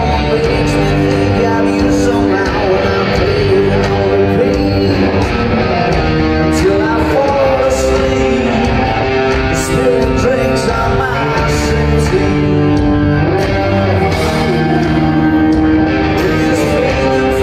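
Rock band playing live, heard from the crowd: electric guitar, bass and drums, with a male voice singing over them.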